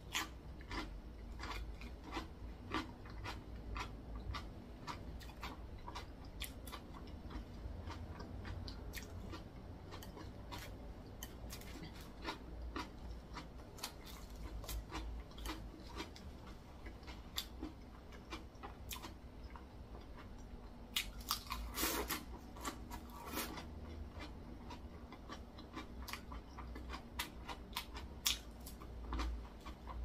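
A person chewing food close to the microphone: irregular crisp crunches and wet clicks of the mouth, with a run of louder crunches about two-thirds of the way through.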